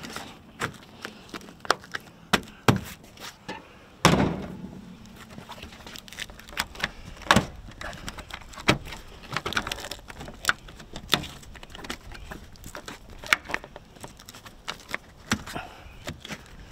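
Hands working a Jeep soft top's fabric edge into the body channel: scattered clicks, taps and rustles of fabric and plastic, with one louder thump about four seconds in.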